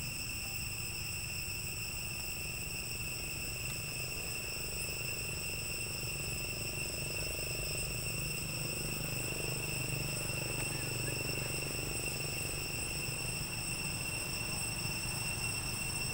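Steady, unbroken high-pitched whine of insects in the forest, holding one pitch with fainter overtones above it, over a constant low rumble.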